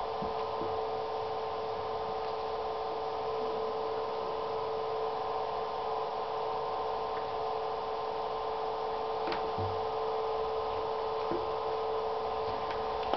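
Steady machine hum made of several held tones, unchanging throughout, with a few faint taps as a kitten scrambles and bats toys around the empty acrylic tub.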